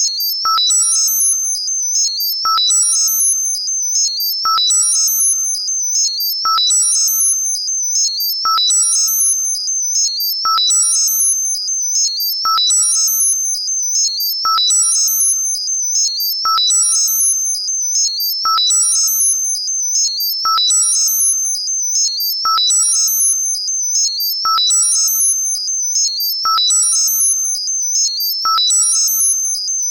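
Synthesized high-pitched tinnitus-masking sound. A steady high tone runs with a cluster of still higher, chirping tones, and a short lower beep sounds once per cycle. The whole pattern pulses in an even cycle about every two seconds.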